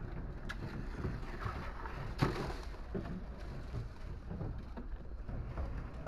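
Fishing-harbour ambience: a steady low rumble with wind buffeting the microphone, and one sharp knock about two seconds in, with a few softer knocks around it.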